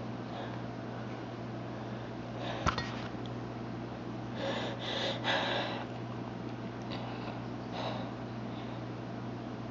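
A person sniffing and breathing in sharply in short noisy bursts, as a sneeze builds: two or three bursts about halfway through and two fainter ones later. There is a sharp click about a quarter of the way in, over a steady low hum.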